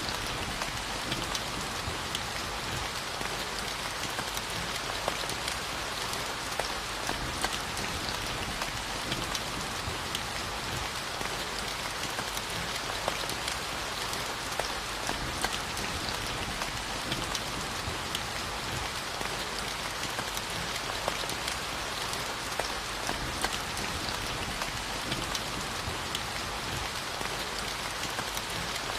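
Steady rainfall hitting a surface, an even hiss with many small drop ticks scattered through it.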